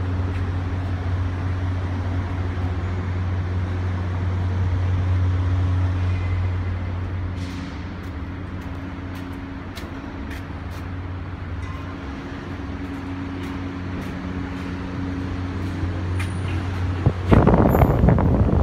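Rita/Windy industrial exhaust fan running behind a louvered vent: a steady low hum with a couple of fainter higher tones over it. Near the end a loud rush of air comes in as the fan's exhaust blows across the microphone.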